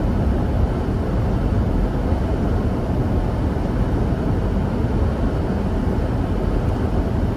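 Steady cabin noise of a car on the move: a low, even rumble of engine, tyres and wind.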